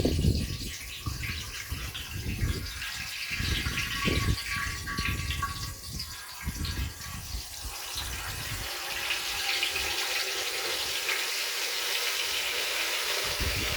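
Hot frying oil bubbling and sizzling as a whole turkey is lowered slowly into the fryer pot, the fizzing growing thicker and steadier about halfway through. Irregular low rumbles come and go in the first half.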